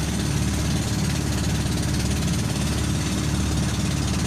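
Boat engine running steadily at a constant speed, a dense pulsing drone with wash-like hiss above it.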